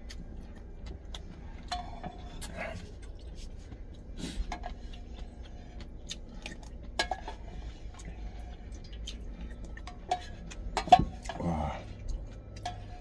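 Wooden chopsticks clinking against a stainless steel camping pot of ramen, with noodles slurped twice and some chewing; the sharpest clink comes just before the second slurp, over a low steady hum.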